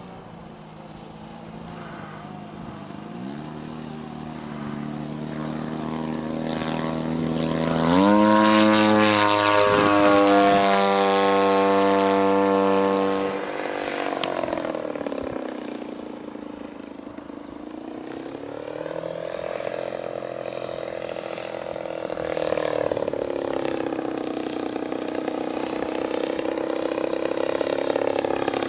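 Engine and propeller of a 1/3-scale Piper Super Cub RC airplane in flight, growing steadily louder, loudest for about five seconds, then dropping suddenly about thirteen seconds in. After that the engine's pitch rises and falls as it keeps flying.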